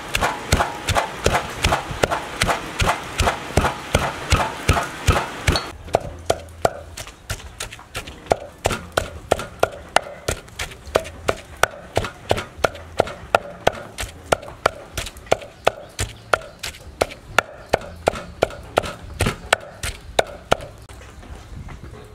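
Wooden pestle pounding lemongrass, garlic and chili in a mortar: steady rhythmic thuds, about two to three strokes a second. The strokes grow softer after about six seconds, once the ingredients are being ground into a paste.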